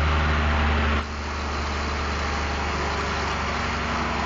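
12-valve Cummins 5.9 L inline-six diesel idling just after starting. About a second in it gets quieter and settles into a steady idle.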